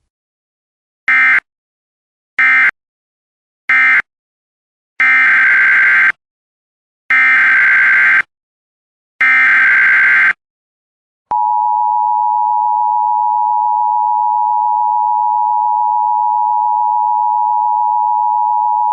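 Emergency Alert System signalling: three short warbling data bursts of the end-of-message code closing one alert, then three longer SAME header data bursts opening the next, then the steady two-tone EAS attention signal held for about eight seconds.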